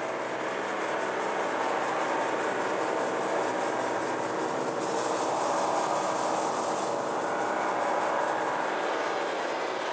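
Steady crowd chatter: many people talking at once, blending into one continuous babble.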